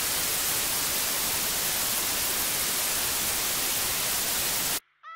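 Steady static hiss, like white noise, that cuts off suddenly near the end. It is followed right at the end by a brief, faint, wavering high-pitched cry.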